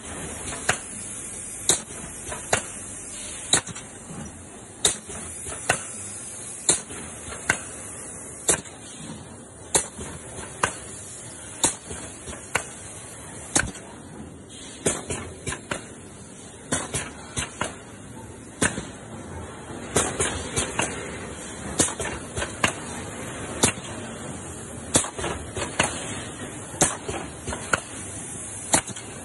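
Schlatter PG12 resistance mesh welding machine running through its welding cycles, with a sharp clack about once a second, sometimes doubled, over a steady machine hiss.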